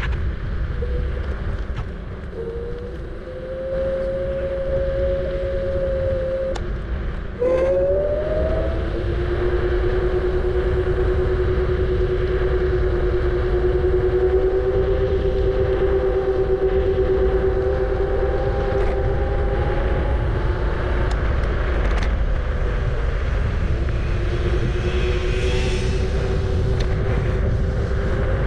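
Kugoo G-Booster electric scooter riding: a tonal motor whine over a steady low wind and road rumble. The whine's pitch shifts with speed, jumping sharply about a quarter of the way in, then creeping slowly upward.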